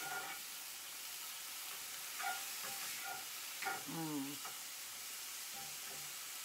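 Peas and carrots with fresh garlic frying in a skillet with a steady sizzle, stirred with a spatula that scrapes against the pan a few times.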